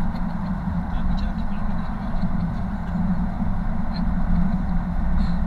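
Steady road and engine noise inside a moving car's cabin, driving through a road tunnel.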